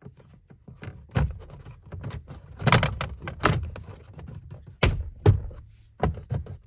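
Plastic interior dash trim panel being pushed and snapped back into place: a series of knocks and clicks, the loudest few in the middle.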